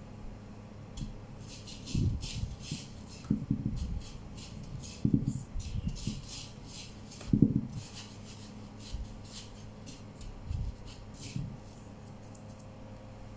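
Dry breadcrumbs rustling and scraping in a wooden bowl as a pandesal dough ball is rolled through them by hand, with several soft thumps against the table. A faint steady hum runs underneath.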